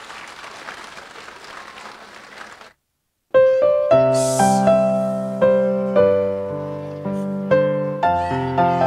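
Audience applause that cuts off suddenly, then after half a second of silence a piano-sounding keyboard starts an introduction of separate struck notes, each ringing and fading. It opens a children's medley of ilahije (Bosnian Muslim devotional songs).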